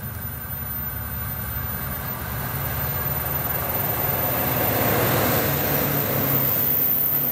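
Two DD51 diesel locomotives, double-heading a passenger train, approach and pass close by. Their engines give a steady low drone that grows louder throughout and is loudest near the end as they go past.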